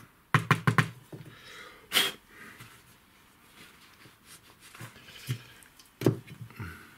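Short hiss of an aerosol can of contact cleaner sprayed into a spark plug cap about two seconds in, between small clicks and knocks of the cap and lead being handled: a quick run of about five knocks at the start and another run near the end.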